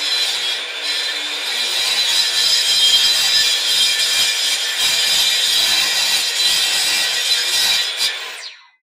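A power tool running as it cuts wood, a steady high whine over the noise of the cut, fading out near the end.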